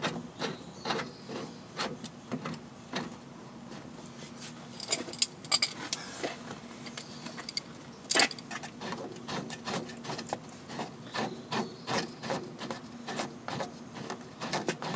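Hand work at a coil-over rear shock absorber's upper mount: irregular metal clicks, knocks and scraping as the shock and its mounting bolt are handled, with a run of evenly spaced clicks in the second half.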